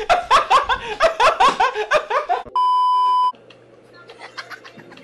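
A young man laughing loudly in rapid, repeated ha-ha bursts, cut off about two and a half seconds in by a loud, steady, single-tone electronic bleep lasting under a second. After that the sound falls to a faint background.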